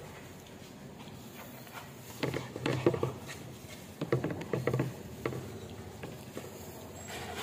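Thin plastic bag wrapped around a pastil crinkling as it is handled, in two bursts of crackling about two and four seconds in and a brief one just after.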